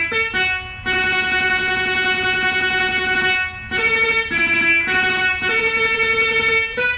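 Jakhe, the Thai three-string floor zither, played with a plectrum: a slow melody of long held notes kept sounding by rapid tremolo plucking. A low note is held for about two and a half seconds, then a few shorter notes, then a higher held note near the end.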